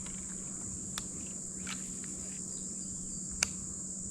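Steady high-pitched drone of insects, with a faint low steady hum underneath. Two sharp clicks cut through it, one about a second in and a louder one late.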